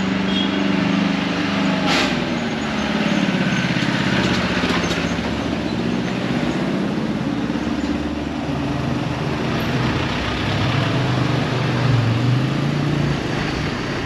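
Engines of road vehicles passing close by, their pitch slowly rising and falling as they come and go. A single sharp click about two seconds in.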